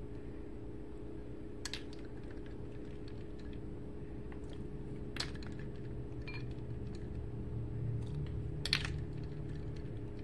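A measuring spoon clinking and tapping against dishes as tablespoons of cold water are spooned into a batter bowl: scattered light clicks, with sharper clinks about two, five, six and nine seconds in, the last the loudest. A steady low hum runs underneath.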